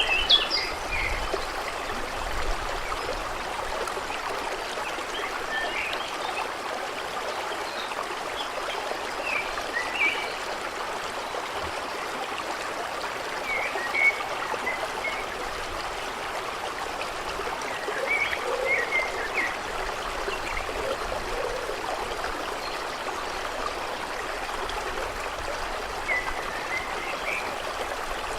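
A stream babbling and trickling steadily, with short bird chirps now and then.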